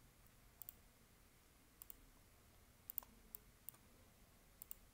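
Computer mouse button clicks, several of them quick press-and-release doubles, about six spaced irregularly over a few seconds against faint room hiss.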